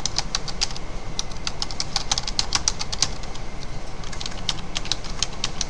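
Computer keyboard typing: quick, irregular runs of key clicks with a pause of about a second past the middle, over a steady low hum.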